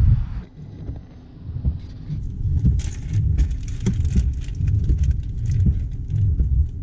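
A brief rush of wind on the microphone that cuts off about half a second in, then the sound inside a car in heavy rain: irregular raindrop ticks on the windscreen and roof over a low, uneven rumble.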